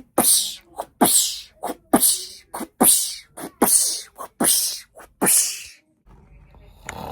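A person imitating a run of sneezes with their voice: seven sharp, breathy bursts less than a second apart, each with a short catch just before it.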